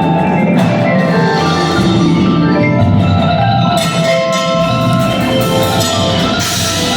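Instrumental band music: a dense run of short, bright pitched notes over a steady low bed, growing brighter near the end.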